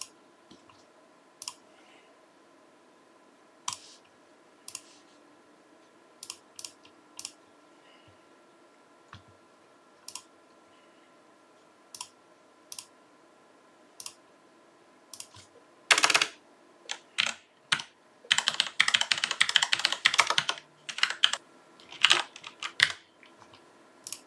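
Computer keyboard and mouse clicks. Scattered single clicks come for the first fifteen seconds or so, then a burst of rapid typing runs for several seconds about two-thirds of the way in.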